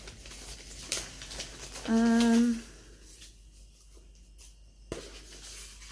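A woman humming a short, steady "mmm" about two seconds in, held for under a second on one pitch. There is a light click before it and another near the end.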